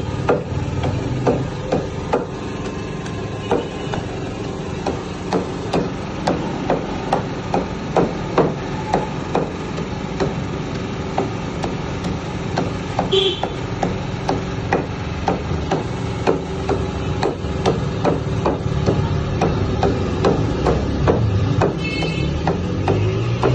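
Heavy cleaver chopping raw mutton into mince on a wooden log chopping block: a steady run of sharp chops, about two a second.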